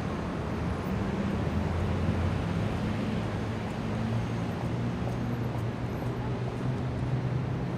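Indian city street traffic: vehicle engines running as cars, motorbikes and auto-rickshaws go by over a steady wash of road noise, with low engine hum that shifts in pitch and swells a little about two seconds in.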